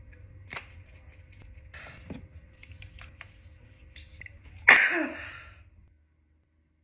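A person's sneeze, sudden and loud about two-thirds of the way in, trailing off over about a second. Before it come a few faint short noises.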